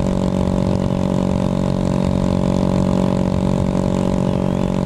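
Honda Grom's 125 cc single-cylinder engine idling steadily.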